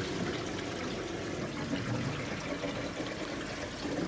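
Water flowing down through newly installed black ABS drain pipes: a steady rushing and trickling. This is a flow test of the repaired sewer line.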